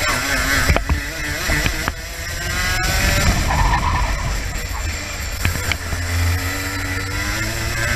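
Racing kart's two-stroke engine at full race pace, heard from on board: the engine note falls off about two and five seconds in as the kart slows for corners, then climbs again as it accelerates out.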